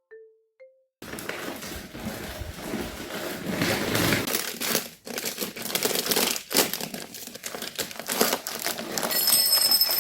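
Dense, irregular crinkling and rustling, full of small clicks, starting about a second in and running to near the end, with a few faint high tones shortly before it stops.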